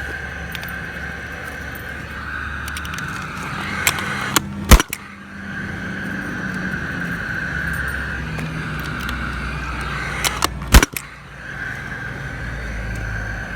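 Gas-powered concrete nail gun firing twice, about six seconds apart, each shot a sharp loud crack as a steel pin is driven into the concrete slab, with small clicks just before each shot. A steady hum runs underneath.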